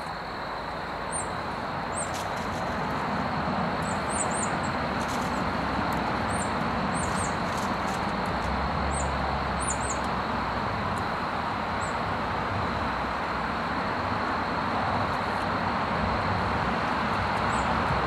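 Steady background traffic rumble, growing a little louder over the first few seconds, with short high chirps from small songbirds scattered throughout and a thin steady high tone underneath.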